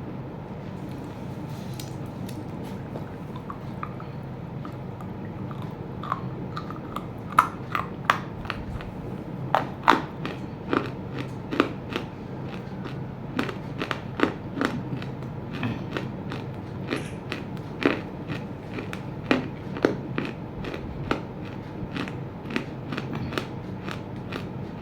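Chunks of roasted clay being bitten and chewed close to the microphone: irregular sharp crunches starting about six seconds in, over a steady low hum.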